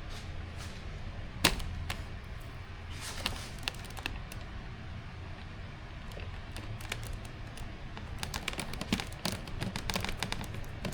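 Small hardware clicking and tapping as screws and plastic parts are handled and tried for fit: one sharp click about a second and a half in, a few more around three to four seconds, then a dense run of quick clicks near the end.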